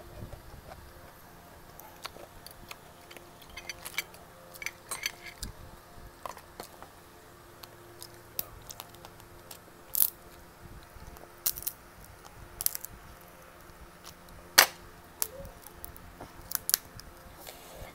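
Snow crab leg shells being snipped with kitchen shears and cracked apart by hand: a scattered series of sharp clicks and snaps, the loudest crack about fourteen and a half seconds in.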